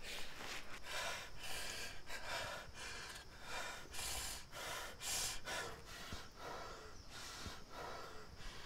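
A man sobbing in quick, ragged gasping breaths, roughly two a second.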